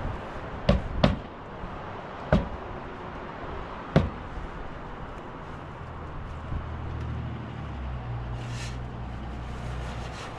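Four sharp knocks at uneven spacing, two close together about a second in, then one at about two seconds and one at four. From about six seconds in a low steady hum sets in.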